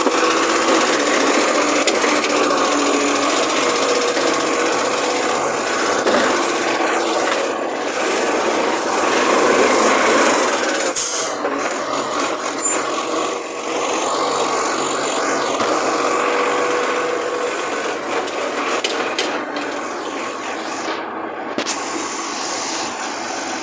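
Garbage truck's diesel engine and machinery running, a steady mechanical noise with a low pulsing hum, and a sharp click about eleven seconds in.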